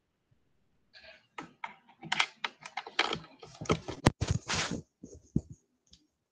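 A busy run of close clicks and rustles from handling at the laptop, starting about a second in and tapering off after about five seconds.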